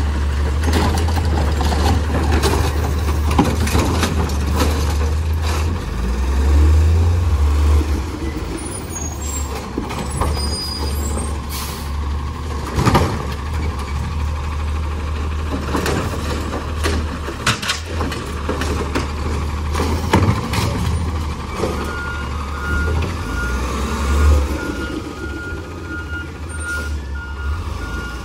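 Autocar ACX garbage truck with a Rapid Rail automated side arm at work: the diesel engine runs steadily under the hydraulic arm, with several sharp clanks as the cart is handled and set down. From about three-quarters through, the truck's reversing alarm beeps steadily, about two beeps a second.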